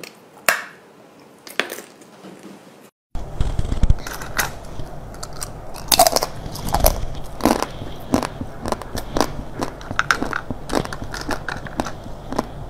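Frozen chocolate candies being bitten and crunched: a few crisp cracks, then after a short break about three seconds in, a dense run of loud crackly crunches over a low steady hum.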